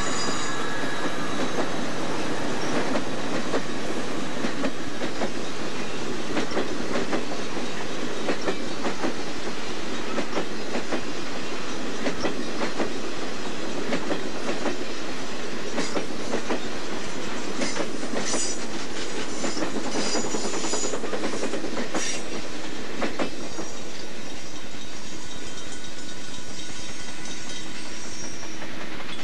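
Amtrak passenger train passing close by: an F40PH diesel locomotive, then Superliner bilevel cars, with the wheels clicking and clacking over rail joints. The clicks come thickest in the second half.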